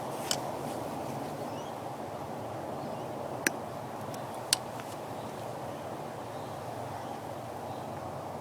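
Three short sharp clicks over a steady low background hum: one near the start, then two about a second apart around the middle.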